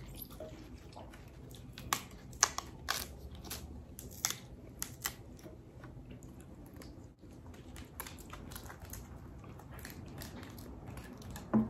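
Crispy banh xeo crêpe crackling as it is torn apart by hand and wrapped in lettuce: a scatter of sharp crisp cracks, thickest a couple of seconds in, with a short thud near the end.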